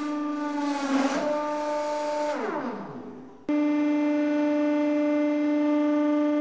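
Hydraulic press pump motor running with a steady droning whine. About a second in there is a short noisy burst; then the whine falls in pitch and fades as the motor winds down. It cuts off abruptly and the press drone returns at full steady level.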